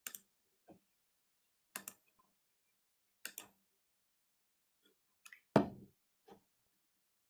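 Scattered clicks and taps at a computer desk, about seven in all, with one much louder thump about five and a half seconds in. The audio drops to dead silence between them, as a video-call line with noise suppression does.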